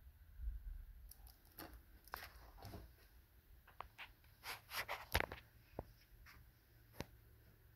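Quiet room with faint rustles and a scattering of light clicks and taps from handling and moving about. The sharpest tap comes about five seconds in.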